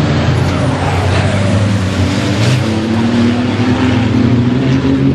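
Fórmula Truck racing truck's diesel engine running hard, its pitch holding fairly steady and then climbing slightly in the later part.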